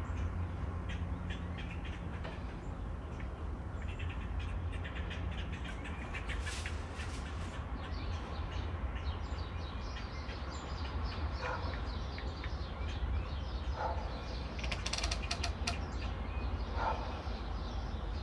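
Outdoor background: a steady low rumble, with bursts of quick clicking about five seconds in and again about fifteen seconds in, and short calls every two to three seconds in the second half.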